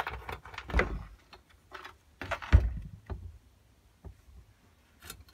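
Stripped Razor E100 scooter frame and wheels knocking and clattering against a wooden workbench as it is set down and shifted into place, a string of thuds with the loudest about two and a half seconds in, then quiet.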